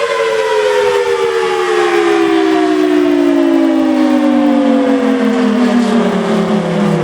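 Federal Signal Thunderbolt outdoor warning siren, built in 1983, winding down: its chord of tones falls slowly and steadily in pitch.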